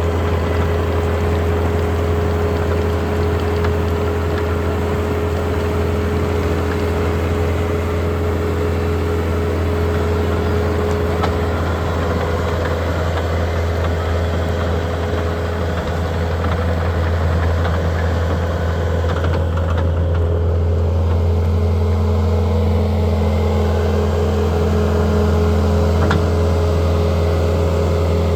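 2011 Bobcat T770 tracked skid steer's diesel engine running at a steady speed, a loud even hum with no revving.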